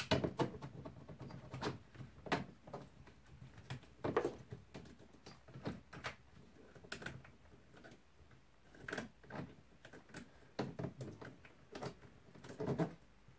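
Scattered light clicks and knocks of hand tools and metal or plastic parts being handled while working on a chainsaw, irregular and a second or so apart.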